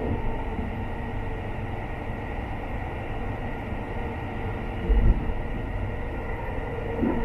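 Running noise of the Sunrise Express sleeper train, a 285-series electric train, heard from inside the carriage as it rolls past station platforms: a steady rumble with a faint steady whine, and a brief low thump about five seconds in.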